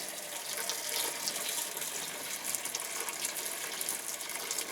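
Boiling water being poured into a container in a steady, splashing stream.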